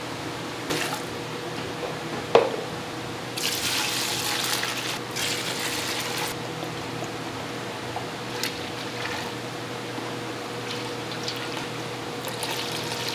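Dark sauce poured from a plastic pitcher into a steel pot, splashing and fizzing in long pours, with one sharp knock about two seconds in. A steady low hum runs underneath.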